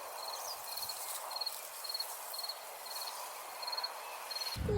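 A cricket chirping steadily outdoors, short pulsed chirps repeating about twice a second over a faint background hiss. A low rumble starts near the end.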